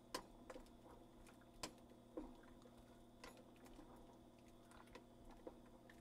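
A wooden spoon stirring rigatoni and broccoli in a stainless steel pot of water: a few faint, scattered knocks against the pot over a low steady hum.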